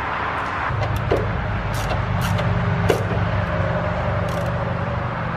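Socket wrench tightening a bolt through a plastic solenoid mount: scattered sharp ratchet clicks. Under them is a steady low mechanical hum that starts about a second in.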